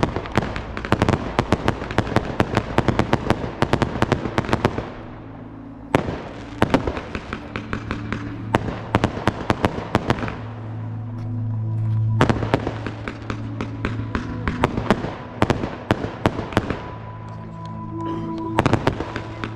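Fireworks display: rapid bangs and crackles of bursting shells and ground effects, coming in dense runs with short lulls about five seconds in, around ten to twelve seconds, and again near the end. Music with sustained low notes plays underneath, plainest in the lulls.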